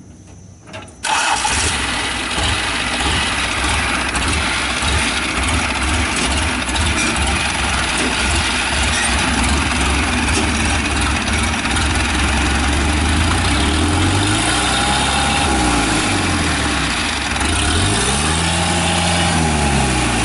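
Diesel engine of a farm machine running steadily. It comes in loud about a second in, and its revs rise and fall back twice in the second half.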